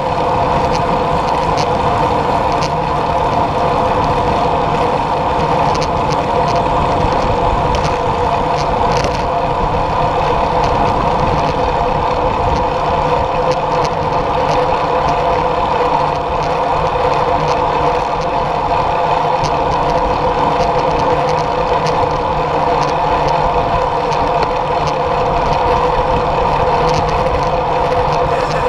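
Wind and road noise on a bicycle-mounted camera riding at speed: a steady, loud rush of air over the microphone with a constant hum from the tyres rolling on asphalt.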